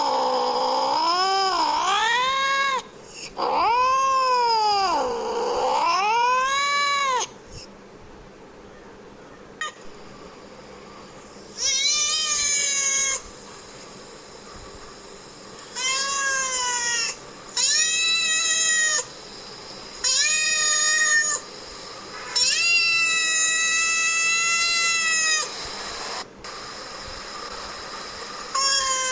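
Domestic cat meowing: two long drawn-out meows in the first seven seconds, each sliding down and back up in pitch. After a pause come several shorter meows, the last of them longer and held at a steady pitch.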